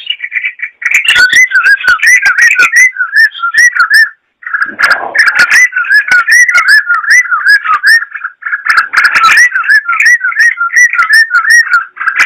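Yellow-vented bulbul singing nonstop in fast, bubbling whistled phrases of looping notes, pausing briefly about four seconds in and again about eight seconds in.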